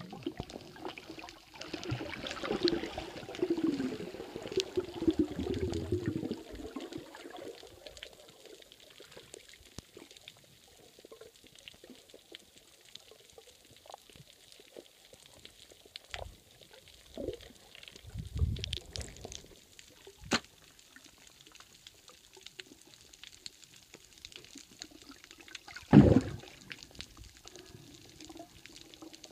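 Muffled underwater water noise picked up through a phone's waterproof case. For the first several seconds there is loud bubbling and churning water. After that it is quieter, with scattered knocks and clicks; the loudest is a sharp knock about 26 seconds in.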